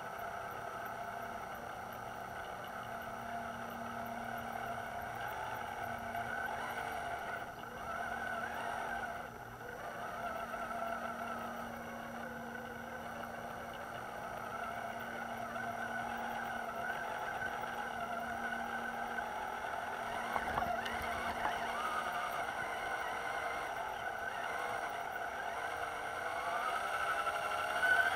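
The electric motor and gear drivetrain of an Axial Wraith RC crawler truck whining as it drives, the whine's pitch wavering up and down as the speed changes.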